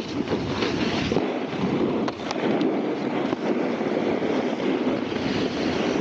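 Snowboard sliding and scraping over packed snow, with wind rushing over the microphone as the rider moves. It is a steady noise with a few faint clicks.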